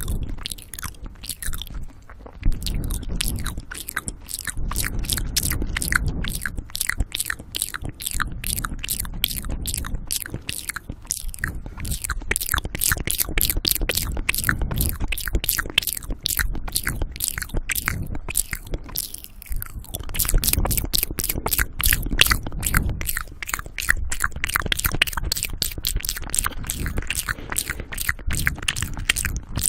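Wet ASMR mouth sounds made right at the microphone: a rapid stream of lip and tongue clicks and smacks, several a second without pause, with heavy breathing on the mic.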